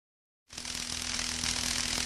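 Steady hiss-like masking noise, strongest in the upper range, with a faint steady hum and low rumble beneath it, starting abruptly about half a second in.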